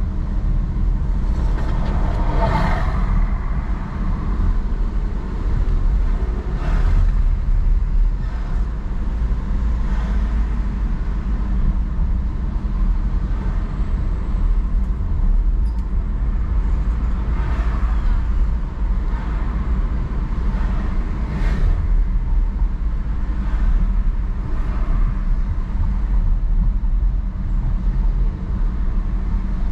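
Car driving through town streets: a steady low rumble of engine and tyres on the road. A few passing vehicles swell up and fade, the loudest about two and a half seconds in.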